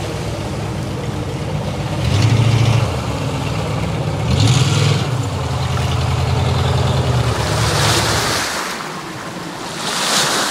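Small jet boat's engine running nearby, its note swelling briefly twice as the throttle is opened. About eight seconds in the engine note drops away, leaving the rush of churned water and wind noise.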